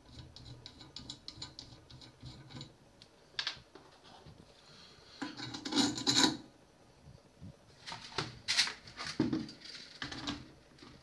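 Nylon nut spun along M8 threaded rod with rapid light clicking. It is followed by clacks and knocks as a 3D-printed spool holder with a 608 bearing is slid onto the rod and a filament spool is fitted onto it. The loudest clatter comes about six seconds in.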